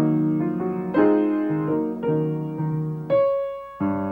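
Solo piano playing slow chords, a new chord struck every half second or so and each left to ring and fade.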